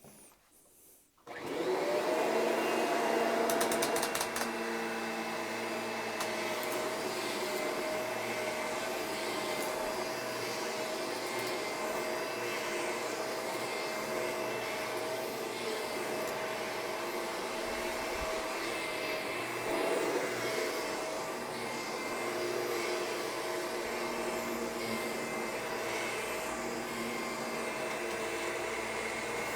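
Upright carpet vacuum switched on about a second in and running steadily over a polyester carpet, its motor giving a steady whine, with the belt-driven brush roll just re-engaged and cleared of tangled debris.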